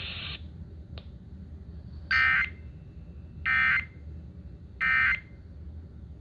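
Three short, identical bursts of EAS SAME digital data tones, evenly spaced about a second and a half apart: the end-of-message signal that closes a severe thunderstorm warning broadcast.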